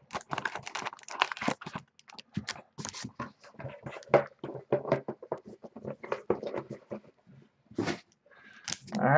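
Shrink-wrapped trading-card boxes and packs being handled: a run of irregular scratching, rustling and light taps of cardboard and plastic wrap, dying down near the end with a single click.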